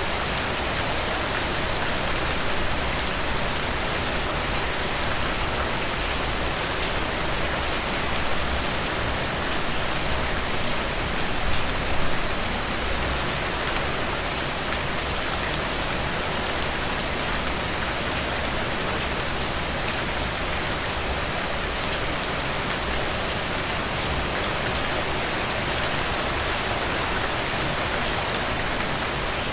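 Steady rain falling on frangipani leaves: an even, dense hiss of rainfall with many separate drop ticks on the leaves, swelling briefly louder about twelve seconds in.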